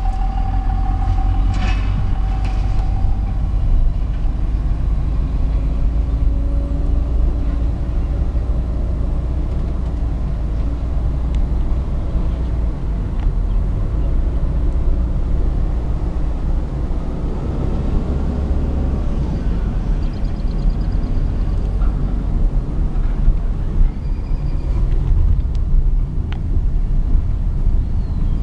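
Road and engine noise of a car driving along, heard from inside the cabin: a steady low rumble.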